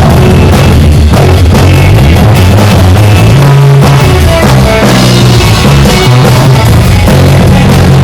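Loud live rock band playing: distorted guitar, bass and a drum kit, with no singing.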